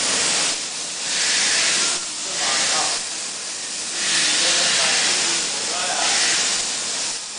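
CNC plasma torch cutting thin sheet metal: a loud, steady hiss of the plasma arc and its gas jet, swelling and dipping every second or so.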